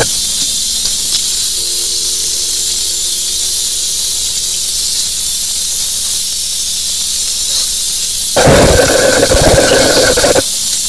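High-pressure sewer jetter blasting water inside a drain line: a steady high hiss of the jet. About eight seconds in, it turns louder and fuller with a pitched whine, then breaks off shortly before the end.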